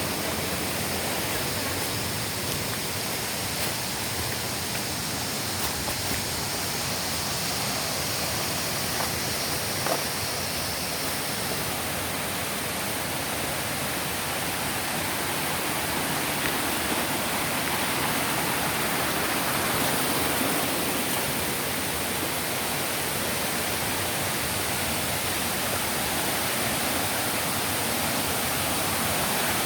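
Water rushing down a tiered waterfall, a steady, even noise. A fainter high hiss in the first part stops about twelve seconds in.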